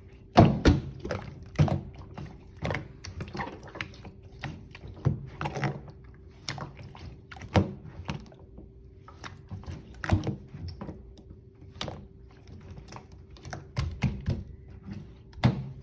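Fondant slime being handled, squeezed and poked, giving irregular sticky pops and clicks, some much louder than others.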